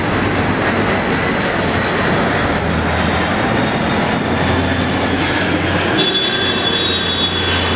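Four-engined Boeing 747SP jet airliner passing low overhead on final approach with gear down: a loud, steady jet engine roar. A high, thin whine joins about six seconds in.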